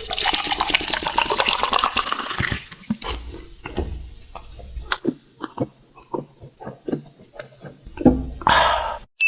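Close-miked ASMR eating and drinking: a couple of seconds of dense wet slurping, then scattered wet mouth clicks of chewing, and another slurp near the end. A steady high beep starts just as it ends.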